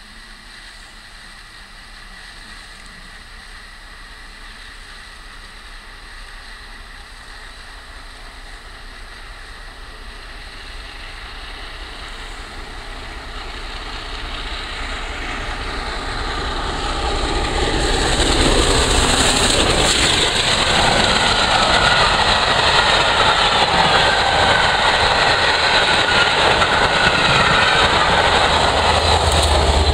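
Peppercorn A1 class three-cylinder steam locomotive 60163 Tornado approaching at express speed with its charter train, growing steadily louder for about 18 seconds. It then passes close by with a steady loud rush of wheels on rail.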